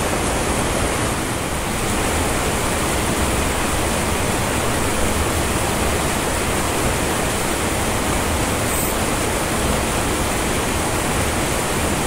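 Mountain stream water rushing steadily.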